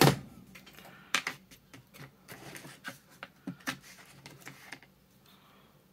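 Irregular light clicks and taps of a plastic model locomotive and small tools being handled on a workbench, with one louder knock right at the start.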